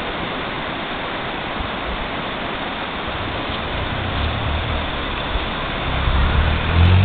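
Shallow river rushing over a rocky bed, a steady hiss of running water. A low rumble swells in underneath near the end.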